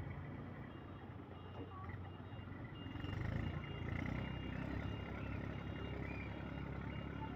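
An electronic beeper sounds short high beeps at about two a second over a steady low rumble.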